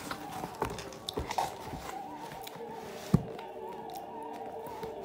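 Handling noise as the camera is picked up and repositioned: rubbing and scattered small clicks, with one sharp knock about three seconds in, over a faint steady hum.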